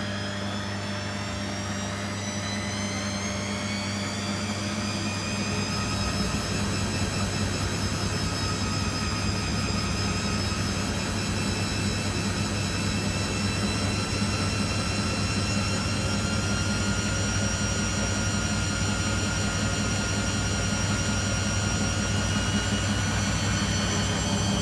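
Beko WTG620M1 washing machine spinning: a whine that rises as the drum speeds up over the first few seconds, then holds level at a steady spin speed over a constant low hum.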